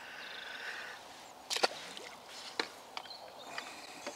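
Short sharp clicks and knocks from handling a small carp as it is unhooked by hand over the landing net and put away. The loudest click comes about one and a half seconds in.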